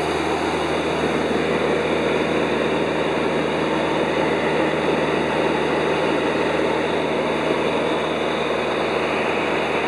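Light aircraft's engine and propeller drone heard from inside the cabin in flight: a steady, even hum with low tones under a broad rush of airflow noise.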